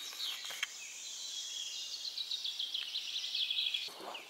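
Several songbirds singing together, a dense run of quick high chirps that stops short near the end.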